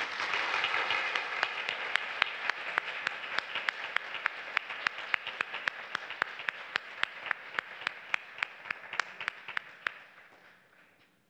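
Audience applauding at the end of a speech. Individual claps stand out sharply, about four a second, and the applause slowly dies away near the end.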